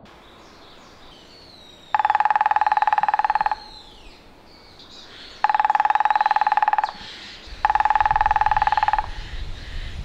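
Grey-headed woodpecker drumming on a tree branch: three fast, even drum rolls of about a second and a half each, with a ringing wooden pitch. Other birds call faintly between the rolls.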